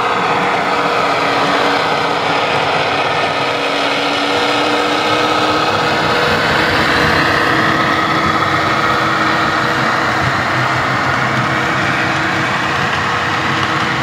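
Model diesel locomotive's DCC sound decoder playing a steady diesel engine sound through its small onboard speaker as the train runs.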